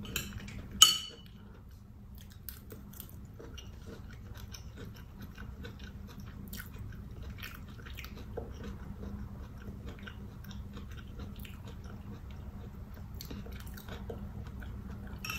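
Close-miked chewing of cauliflower fried rice, with many small wet mouth clicks and smacks over a steady low hum. One sharp, louder click about a second in.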